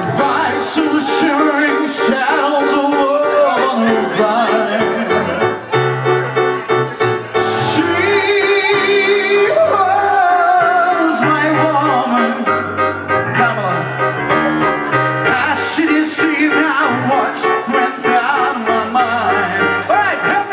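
Live pop band music: a male lead vocal over electric keyboard and a steady bass line, with a few cymbal crashes.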